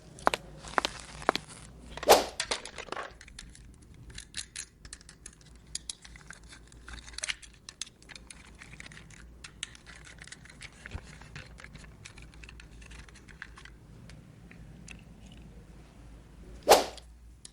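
Small plastic toy parts and packaging being handled: scattered light clicks, taps and crinkly rustling, with two louder knocks, one about two seconds in and one near the end.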